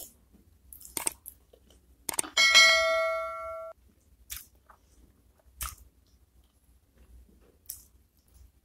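Close-up chewing of spicy chicken feet, with a few scattered soft crunches and clicks. About two seconds in, a bright multi-tone bell chime sound effect rings for about a second and a half and cuts off suddenly; it is the loudest sound.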